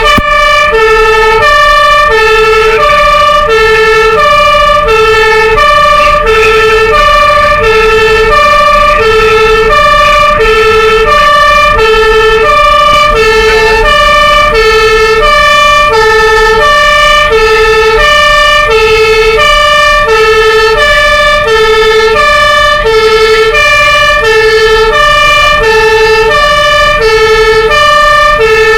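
Two-tone fire engine siren (German Martinshorn) sounding loudly and continuously. A low note and a higher note alternate evenly, each held a little over half a second, over a steady high tone and the low running of a truck engine.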